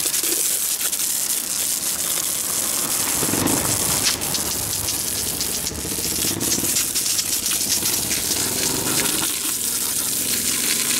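Garden-hose water jet spraying onto a rusty steel pipe flange and splashing on concrete: a steady gushing hiss, fuller in the middle stretch as the stream plays over the metal.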